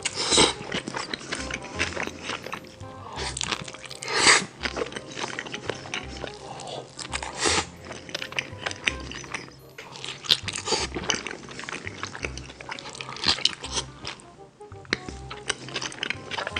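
A person eating close to the microphone: repeated crunching bites and chewing, with the loudest crunches a few seconds apart, over background music with a steady low beat.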